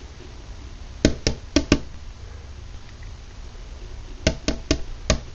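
A robin attacking a window, knocking against the glass in two quick runs of four sharp taps, one about a second in and the other near the end.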